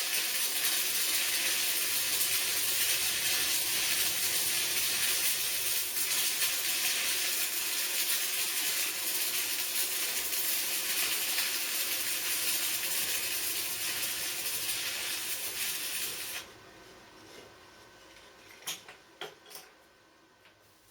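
Welding arc sizzling in a steady hiss while tacking angle-iron rotisserie parts, stopping suddenly about sixteen seconds in. A few faint clicks and taps follow near the end.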